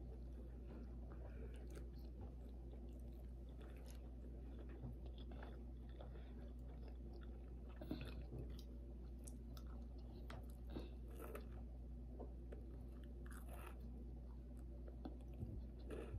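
Soft chewing and mouth noises of two people eating dinner rolls up close, scattered small clicks and smacks, over a steady low hum.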